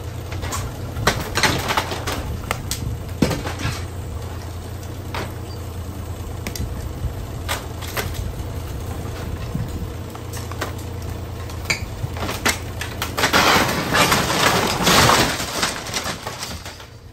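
Mini excavator engine running steadily while its demolition grapple tears at a wooden house's roof and walls, with scattered sharp cracks of breaking timber. About thirteen seconds in comes a loud stretch of crunching and tearing as a section of wall and roofing is pulled down.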